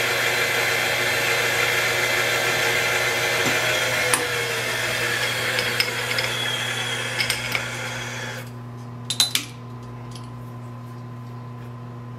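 Acra tool and cutter grinder's wheel grinding the end of a 4-40 socket head screw down to a 2.5 mm bearing shoulder: a steady grinding hiss over the motor's hum. The grinding stops suddenly about eight and a half seconds in, leaving the motor running, with a few sharp clicks.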